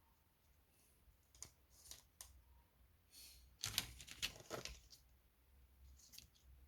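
Faint clicks and light rattles of small parts being handled, with a quick cluster of louder clicks about four seconds in.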